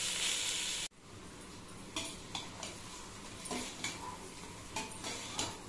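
Rice sizzling as it is stirred in hot oil in a steel pot, stopping abruptly about a second in; then a metal ladle clinking and scraping against the steel pot in irregular strokes as the rice is turned.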